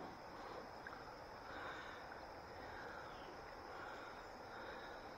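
Faint ambience of moving water: a steady low hiss.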